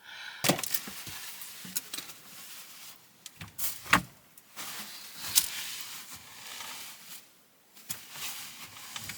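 Household items being handled and shifted around: irregular rustling with scattered knocks and clicks, the sharpest about four and five and a half seconds in.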